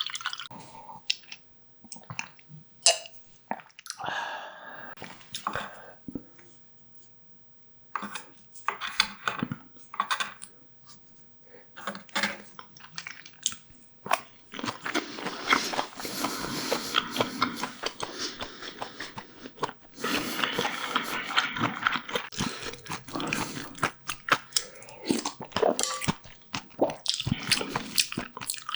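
A person chewing and crunching food close to the microphone, full of sharp wet clicks, with a short lull and then long, dense stretches of chewing from about halfway through.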